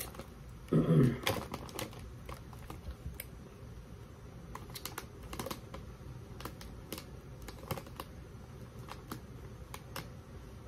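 Plastic snack bag crinkling as it is held and handled, irregular sharp crackles scattered through the whole stretch, with a brief murmured voice about a second in.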